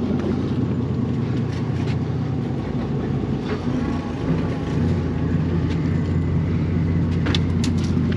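Inboard engines of a 31-foot Bertram sportfishing boat running steadily at trolling speed, a low drone with wash and wind noise over it. The drone grows a little stronger about four seconds in.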